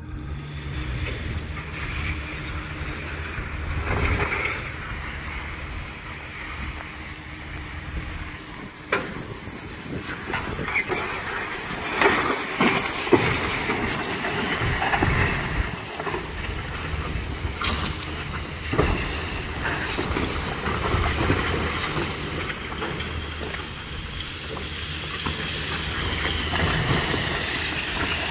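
A steel-framed chicken tractor on skids being dragged over dry dirt behind a pickup truck: a steady scraping hiss with a low rumble underneath, and the metal frame rattling and knocking now and then.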